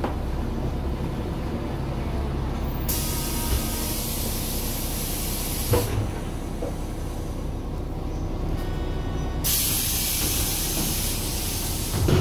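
Bus engine running at a steady low rumble, heard from inside the cabin, with two spells of loud hissing, each about three seconds long, that start and stop sharply.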